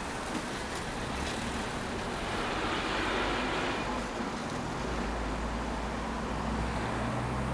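Street traffic: motor vehicles passing, with a swell of tyre hiss about two to four seconds in, then a low engine hum through the second half.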